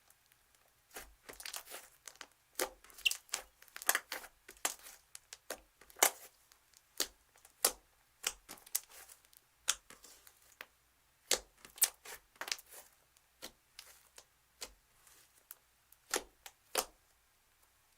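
Slime being handled, making irregular sharp crackles and pops.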